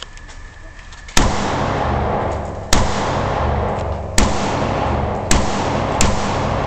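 Five rifle shots from a compensated Schmeisser M5f AR-15 in 5.56 NATO, the first about a second in and the rest at uneven gaps of about one to one and a half seconds, with a loud continuous rumble hanging between the shots.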